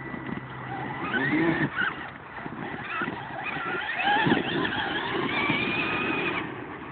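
Electric RC monster truck's 775 motors whining as it is driven hard, the pitch rising and falling with the throttle, over an uneven low rumble with short knocks.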